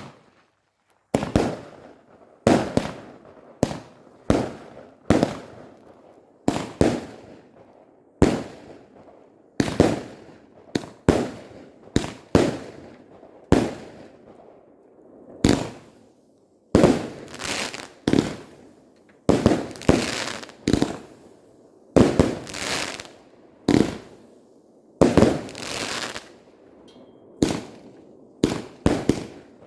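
Maxximum Attack firework cake firing a long string of shots: sharp bangs about one to two a second, each trailing off in a short crackle, with a few brief pauses between volleys.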